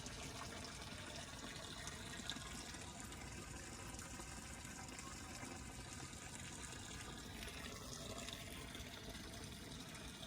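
Steady running water, with a single brief click about two seconds in.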